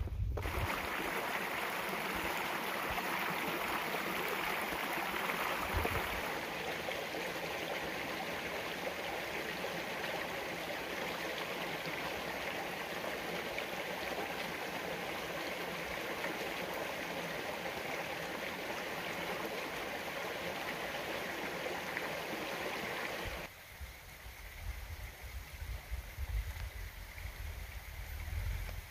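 Small, shallow woodland stream running over pebbles and sticks: a steady rush and trickle of water. It cuts off abruptly a few seconds before the end, leaving quieter rustling and a few low thumps.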